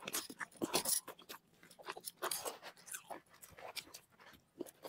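Close-up eating sounds: wet chewing and lip smacks as forkfuls of instant noodles and boiled egg are eaten, with scattered light clicks of forks against plates.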